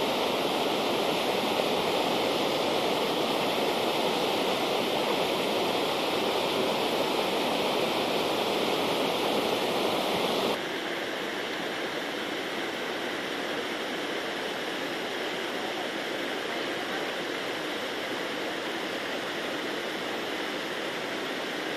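Steady rush of muddy, storm-swollen river water churning and foaming along a bank of flood debris. About ten seconds in it cuts off abruptly to a slightly quieter, steady rush of water that runs on.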